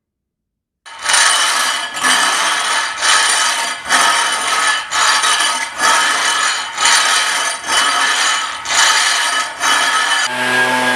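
Scraping strokes across a cured epoxy pebble-stone floor, about one a second, knocking off stray pebbles that stick up. Near the end a small motor starts and runs with a steady hum.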